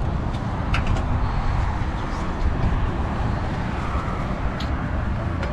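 Steady road traffic rumble, with a couple of brief sharp clicks.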